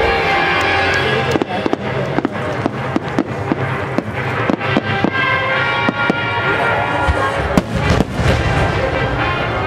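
Fireworks display: a quick run of sharp bangs and cracks from launches and shell bursts, thickening from about a second and a half in, with the loudest burst about eight seconds in, over music that plays throughout.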